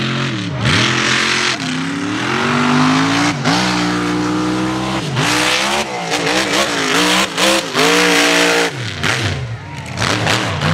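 King Sling mega mud truck's engine revving loudly, its pitch climbing and dropping again and again as the throttle is worked and let off, wavering quickly near the end before falling away.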